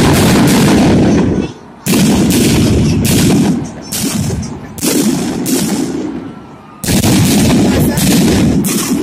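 Ground-level fireworks going off in rapid strings of crackling bangs, four loud volleys with brief pauses between them.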